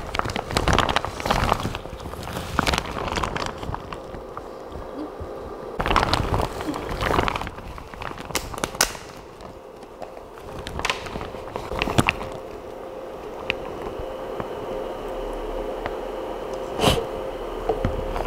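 Clear plastic raincoat rustling and crinkling as the wearer moves and handles things, with a few sharp clicks of handling and a faint steady hum underneath.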